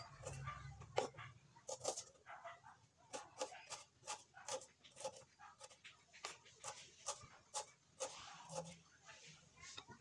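A kitchen knife chopping a red onion on a wooden cutting board: quick, uneven knocks of the blade on the board, about two a second.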